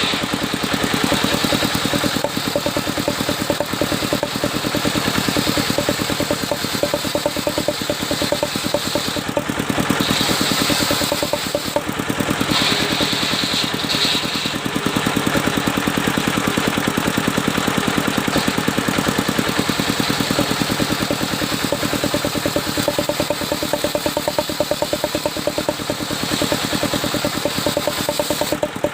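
Engine of a mobile circular sawmill running steadily with a fast, even chugging. A higher-pitched hiss comes and goes about a third of the way in.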